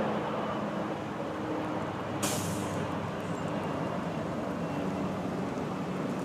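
Steady rumble of a distant military helicopter in flight, mixed with road traffic noise. A short, sharp hiss cuts in about two seconds in.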